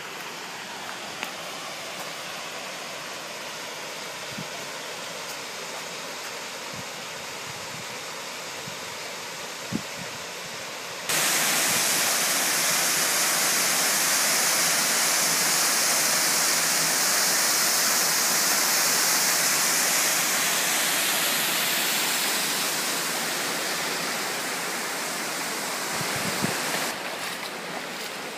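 Water rushing steadily over a stream bed, then, about eleven seconds in, a sudden switch to the much louder, even roar of a waterfall pouring into a pool. This roar eases off a little near the end. It is a mountain falls that is thought to be running unusually quiet after months of little rain.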